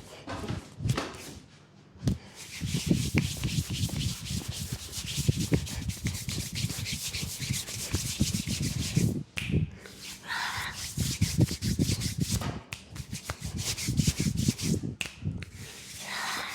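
Hands rubbing fast over the skin of a leg during a vigorous friction massage, a quick run of rubbing strokes. It comes in two spells with a short break in the middle.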